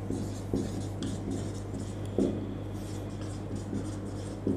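Marker pen writing on a whiteboard: faint scratching strokes as letters are written, over a steady low hum.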